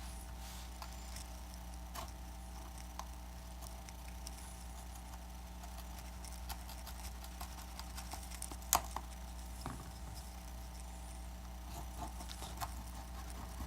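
Scattered light clicks and taps of tools working broken glass off an iPad Air 2 frame, with one sharper click about nine seconds in, over a steady low hum.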